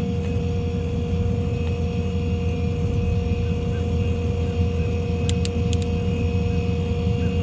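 Ford F550's 6.7 Power Stroke diesel running steadily with its hydraulic system in use: a constant low rumble with a steady whine over it. A few light clicks come about five seconds in.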